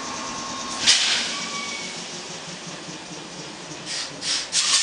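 A 113 series electric train standing at the platform gives short bursts of compressed-air hiss as it readies to depart. There is one loud burst about a second in and several more in quick succession near the end, over a steady hiss from the idling train.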